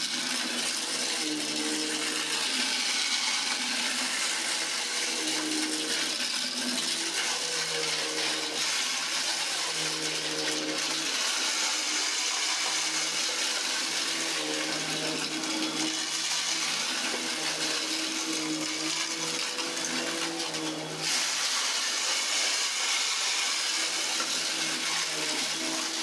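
Dirt Devil upright vacuum cleaner running on carpet, a steady motor hum under a rush of air, with the hum wavering as it is pushed back and forth. The sound dips briefly about three-quarters of the way through.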